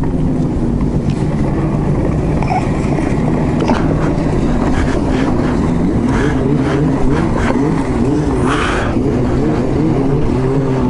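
Two-stroke snowmobile engine running with an unsteady, wavering pitch, close by.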